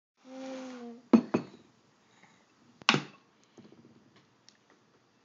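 A plastic spoon knocking against a cereal bowl: two sharp clacks a little after a second in and a louder one about three seconds in, then lighter clinks and scrapes. A brief voice sounds at the very start.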